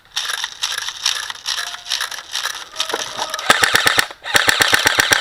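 Airsoft guns firing: scattered single shots at first, then from about three and a half seconds in, rapid full-auto bursts of about ten shots a second, with a brief break between two strings.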